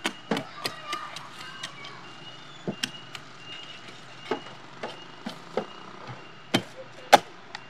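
A meat cleaver chopping through a whole roast pig with crisp skin: irregular sharp chops, a few a second at times, the last few near the end the loudest.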